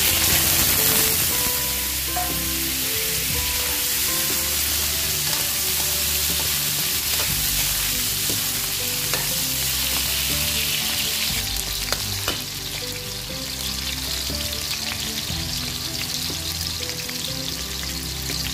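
Potato chunks sizzling as they are pan-fried in hot oil in a metal wok. The sizzle is loudest as they first drop into the oil and eases a little about two-thirds of the way in, with a few scrapes and taps of a metal ladle stirring them.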